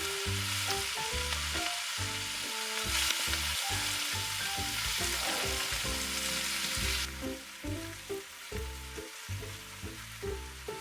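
Tofu and vegetables sizzling in hot oil in a pan. The sizzle drops away about seven seconds in. Background music with a steady run of low notes plays throughout.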